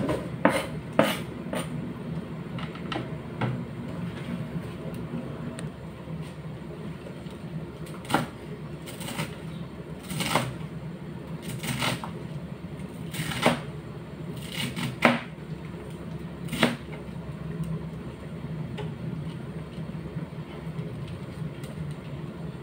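Kitchen knife chopping cabbage on a plastic cutting board: a dozen or so sharp, irregular knocks of the blade on the board, some in quick pairs, over a steady low hum.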